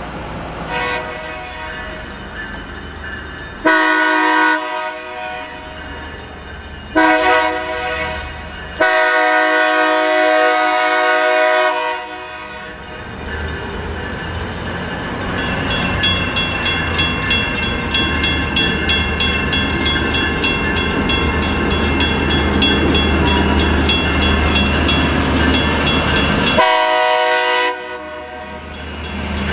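Diesel freight locomotive's multi-chime air horn blowing three blasts in quick succession, the last one long, over the low rumble of its engine. A fast, evenly repeating crossing warning bell follows, then one more short horn blast near the end.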